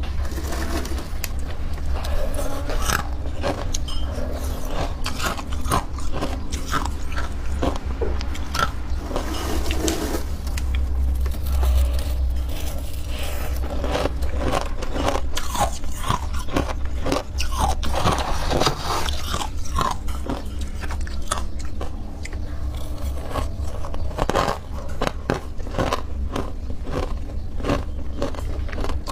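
Close-up chewing of something crunchy: dense, irregular crunches and clicks over a steady low hum.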